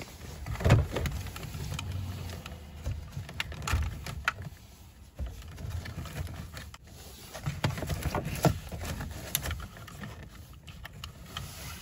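Scattered plastic clicks and knocks as a power-window master switch and its door wiring connector are handled and plugged in, over low, uneven handling rumble.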